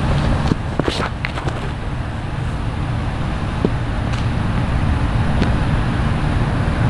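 Steady low outdoor rumble, with a few light clicks and taps about a second in.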